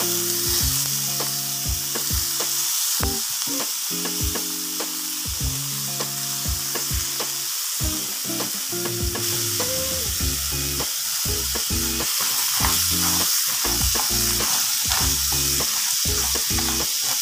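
Shore crabs sizzling hard in hot oil in a frying pan just after vinegar has been poured in, the pan steaming. Short clicks and scrapes come through as the crabs are stirred, more often in the second half.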